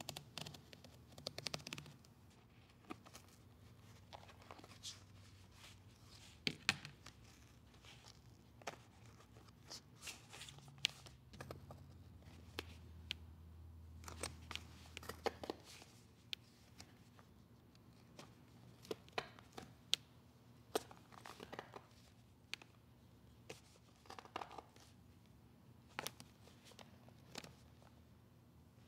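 Stitches being picked and cut out of a leather handbag's seams with a fine pointed pick: irregular small snips, ticks and thread pops, with light handling of the stiff finished leather panels over a faint low hum.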